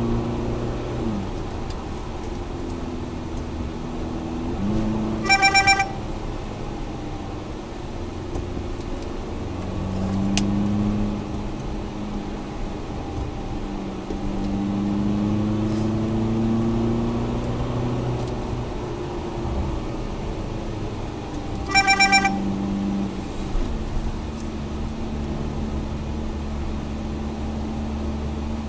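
Car engine and road noise heard inside the cabin as the vehicle accelerates, its pitch rising and dropping back with each gear change. Twice, about five seconds in and again past twenty seconds, a horn sounds in a quick string of short blasts.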